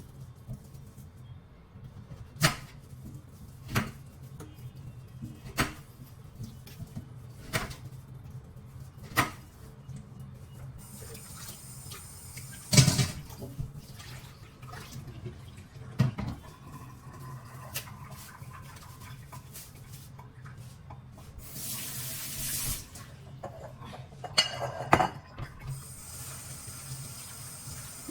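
Kitchen tap running into a sink in spells, with scattered sharp knocks and clinks of things being handled in the water.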